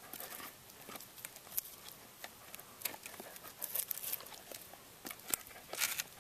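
A border collie's teeth biting and gnawing at a wooden stick: irregular clicks, scrapes and crunches, coming thicker about four seconds in and again near the end.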